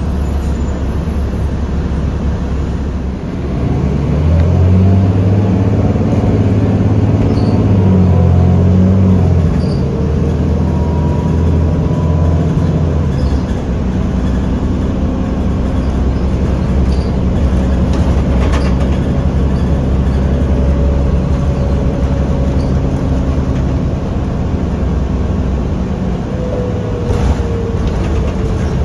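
Diesel engine of a 2008 New Flyer D40LF city bus running under way, heard from inside the bus. It pulls harder about four seconds in as the bus accelerates, then settles. A faint drivetrain whine and occasional short rattles sit over the drone.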